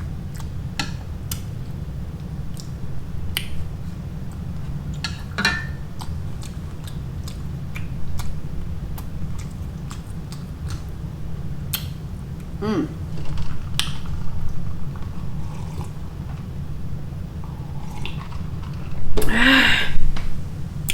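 Close-up eating sounds of a person chewing ramen noodles and seafood: scattered wet mouth clicks and smacks over a steady low hum. A brief vocal sound near the end is the loudest moment.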